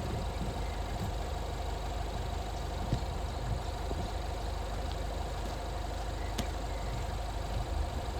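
An engine idling steadily: an even low hum with a faint steady whine above it and a light click or two.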